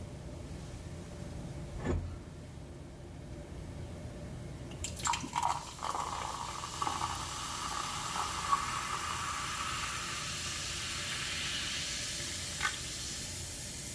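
A drink poured into a glass, starting about five seconds in and running steadily for about seven seconds. There is a single knock earlier and a small click near the end.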